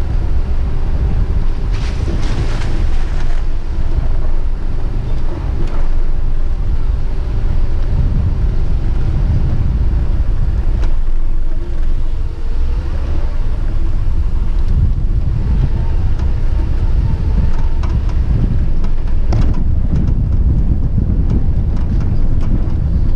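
Wind buffeting the phone's microphone: a loud, uneven low rumble.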